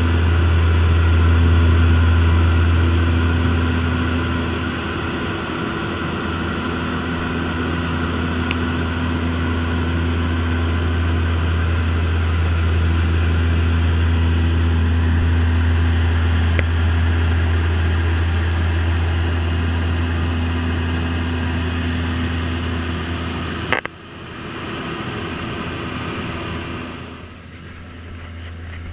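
Turboprop seaplane's engine and propeller droning steadily in cruise, heard from inside the cabin: a deep, even hum with a few steady tones over it. About four-fifths of the way through, the sound drops abruptly to a quieter, thinner drone.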